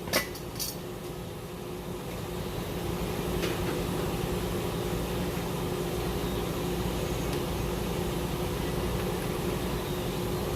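A steady mechanical hum with a faint steady tone, getting a little louder about two seconds in, and a couple of light clicks at the very start.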